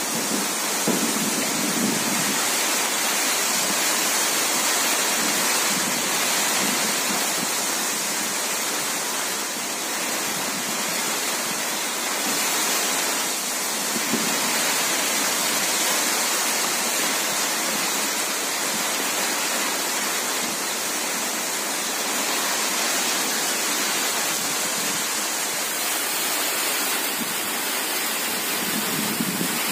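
Steady rain falling, heard from under an umbrella: an even, unbroken hiss.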